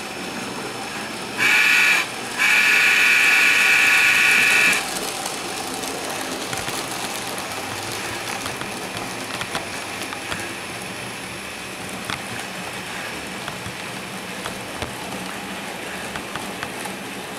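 N scale model locomotive's sound-decoder whistle blowing two blasts, a short one and then a longer one, about a second and a half in. Afterwards the model trains run on with a steady hiss and light clicking from wheels and motors on the track.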